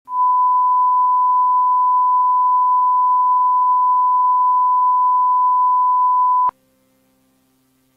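Emergency alert attention tone: one steady electronic beep at a single pitch, held for about six and a half seconds, then cut off abruptly with a click. A faint low hum follows.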